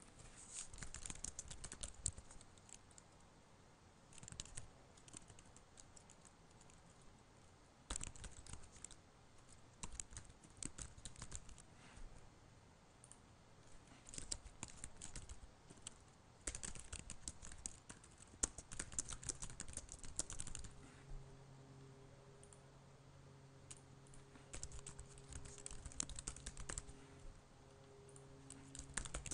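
Typing on a computer keyboard in several short bursts of rapid key clicks, with pauses between them. A faint steady low hum comes in about two-thirds of the way through.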